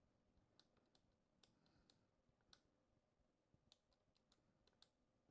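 Near silence, with a dozen or so faint, scattered clicks.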